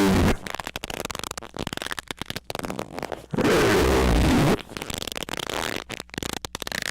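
Loud, distorted squeaking: one squeak of about a second about halfway through, with the tail of another at the very start, and crackling, clicking noise in between.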